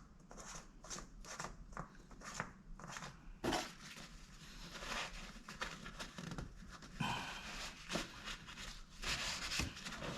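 Light clicks, taps and rustling from hands working under the hood, the oil filler cap being put back on, with a sharper knock about three and a half seconds in.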